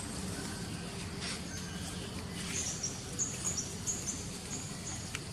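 Forest ambience: a bird repeats short, high, thin notes that step up and down in pitch, starting about halfway through, over steady low background noise.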